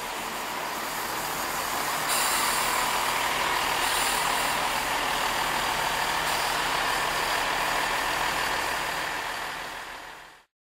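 Chiltern Railways Class 165 diesel multiple unit drawing up at the platform and standing with its diesel engines running: a steady rushing noise with a faint whine, growing louder over the first two seconds and then holding. It cuts off abruptly near the end.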